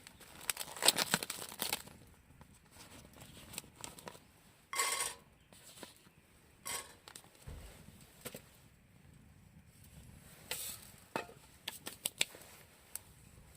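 Intermittent crinkling and rustling with scattered light clicks and knocks.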